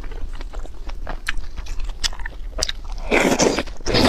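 Close-up mouth sounds of eating wide glass noodles from a spicy stew: wet chewing clicks and smacks, then loud slurping of noodles about three seconds in, twice.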